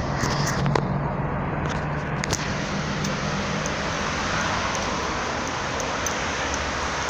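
Steady running noise of a moving vehicle heard from inside, with a low hum that fades out after about two seconds and a few light clicks in the first couple of seconds.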